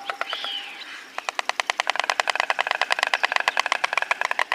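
Stork clattering its bill: a rapid, even rattle of wooden-sounding clicks, more than ten a second, starting about a second in.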